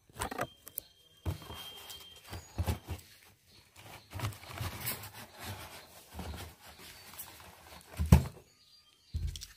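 Cardboard box and its packing being handled while a plastic shampoo bottle is worked out of it: irregular rustles, scrapes and knocks, with the loudest thump about eight seconds in.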